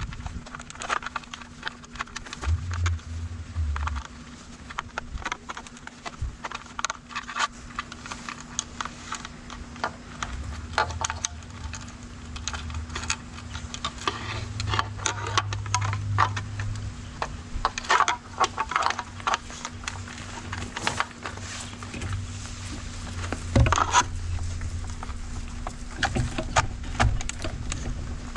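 Hands pushing and shifting a bundle of e-bike wiring and plastic connectors into the frame's controller housing: irregular rustling, scraping and small clicks.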